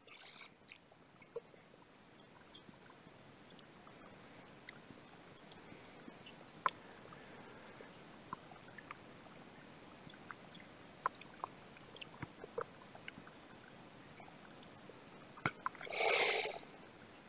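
Faint steady hiss with many scattered sharp clicks, and a short, loud burst of noise about sixteen seconds in.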